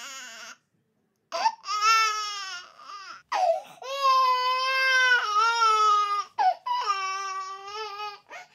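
An 8-month-old baby crying: a wail tails off, then after a short pause come several more wails broken by quick gasping breaths, the longest lasting about two seconds.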